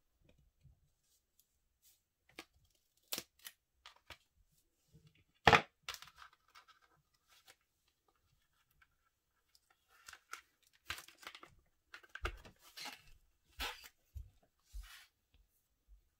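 Cardboard and plastic-sleeve packaging being opened by hand. A few faint clicks come first, then one sharp knock about five and a half seconds in. From about ten seconds on there is a run of tearing and rustling as a photo card is worked out of its tight sleeve.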